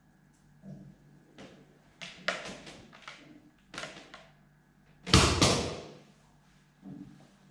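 Handling noises from a Rowenta vacuum cleaner: a run of short clicks, rustles and knocks, with one loud clunk about five seconds in.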